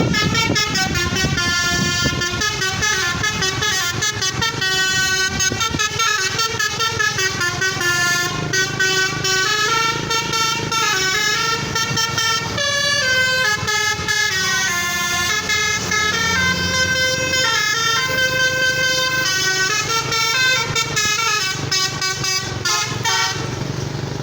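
Bus telolet horn, a multi-trumpet musical air horn, playing a continuous melody of stepping notes, with the engine rumbling underneath.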